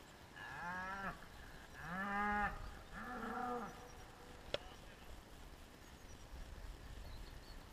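Cattle mooing: three calls in quick succession, each under a second long. A single sharp click follows a little later.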